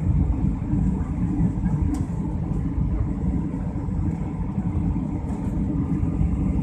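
Steady low rumble of a jet airliner's engines and airflow heard inside the passenger cabin on final approach, just before touchdown.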